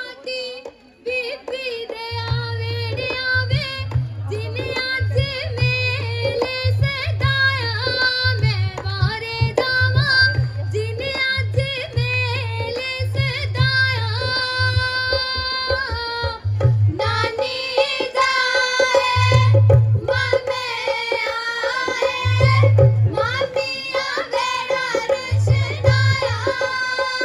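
Women singing Punjabi folk songs (boliyan) for a giddha into microphones, over the beat of a dholki hand drum that comes in about two seconds in.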